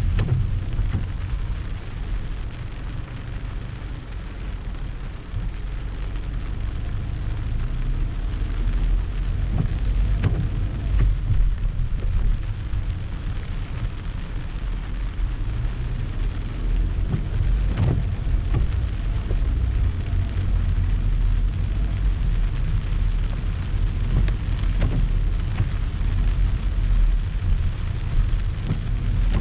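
Heavy rain shower pouring down steadily, a constant hiss over a deep low rumble, with a few sharp taps scattered through.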